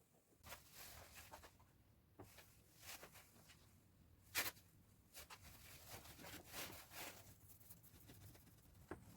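Faint scratching and rustling handling noises, with one sharp click about four and a half seconds in.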